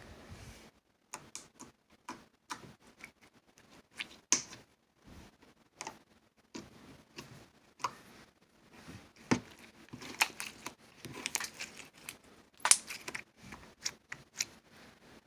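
Slime being squeezed and stretched by hand, giving irregular sticky clicks and pops.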